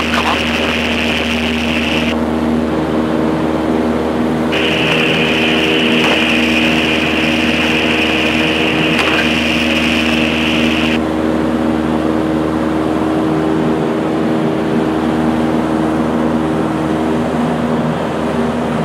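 Robin DR400 light aircraft's piston engine and propeller running steadily, heard inside the cockpit. A higher hiss laid over it cuts out twice and comes back.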